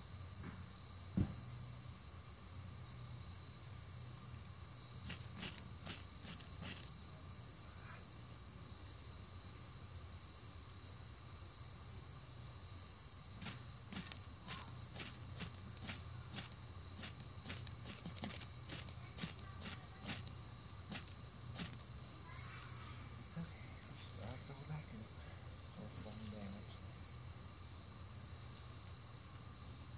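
A chorus of night insects trilling steadily at two high pitches, with scattered sharp clicks and snaps, thickest in the middle stretch.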